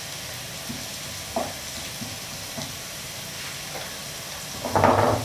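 Sliced Thai shallots sizzling steadily in hot oil in a wok, stirred now and then with a wooden spatula, with a brief louder sound near the end. The shallots are just beginning to turn golden.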